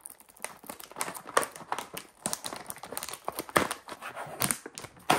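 A Lunchly snack kit's packaging being opened: irregular crinkling and crackling with a few sharper clicks, louder later on.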